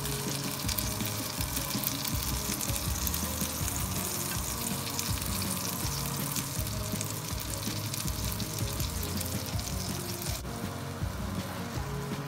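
Egg sizzling in a hot nonstick frying pan, a steady crackly hiss that eases a little about ten seconds in, with background music underneath.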